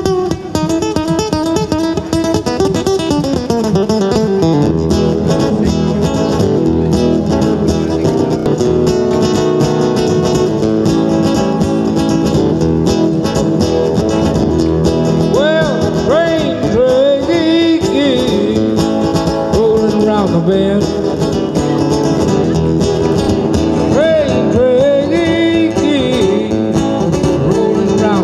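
Instrumental guitar break on a nylon-string classical guitar, fast picked runs in a flamenco-tinged style. From about halfway through, short sliding, bending notes come through over the picking.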